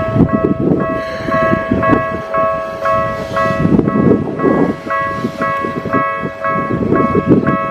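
Japanese level-crossing alarm bell ringing at about two strokes a second while a Keikyu train passes with a heavy low rumble.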